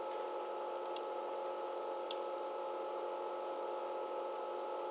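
Steady background hum with a few constant tones: the room tone of the recording, with no machine actually running. Two faint clicks come about one and two seconds in.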